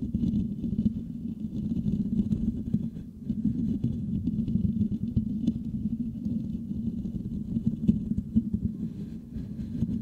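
Fingertips scratching and rubbing rapidly on the metal mesh grille of a Blue Yeti microphone, picked up by that microphone as a dense, low, rumbling scratch. The scratching eases briefly about three seconds in and again near the end.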